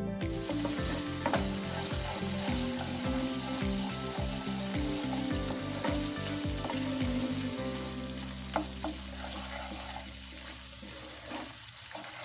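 Spiced masala paste sizzling in oil in a kadai while a spatula stirs and scrapes it, with a few sharp scraping clicks. The gravy is being fried down (koshano) until cooked through.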